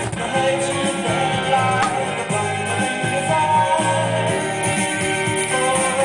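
Music with guitar and a singing voice playing steadily through a vintage Gradiente stereo system's Spectrum 65 loudspeakers.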